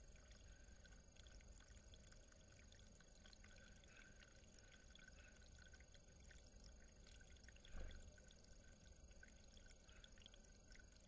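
Near silence: a faint trickle of running water over stone with a low rumble, broken by one soft thump about eight seconds in.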